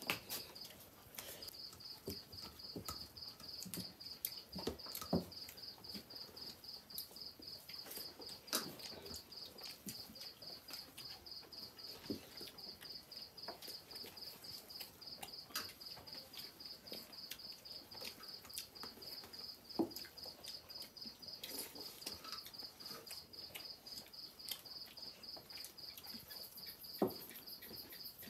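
Crickets chirping steadily in a high, even pulse. Sharp clicks and taps of hands and food on plates come now and then.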